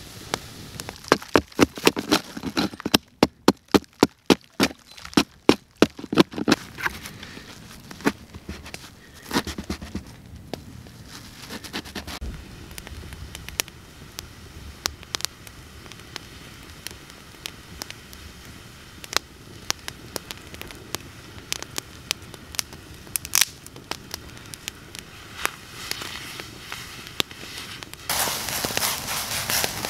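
Small campfire of dry sticks crackling and popping, with a quick run of loud pops over the first six seconds and scattered pops after. Near the end a steady hiss rises from the steaming metal bowl set on the flames.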